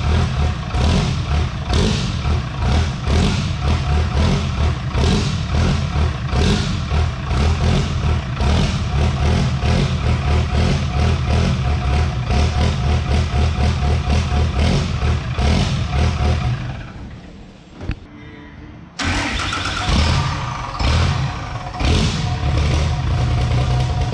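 Cummins six-cylinder diesel drag truck engine running loud with a pulsing beat. Near the end it fades away briefly, then comes back in abruptly.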